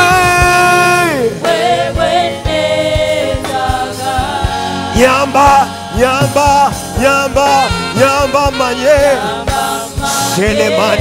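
Live gospel worship music: a man sings lead into a microphone with backing singers, over a band keeping a steady beat. It opens with a long held note that slides down, then moves into short sung phrases.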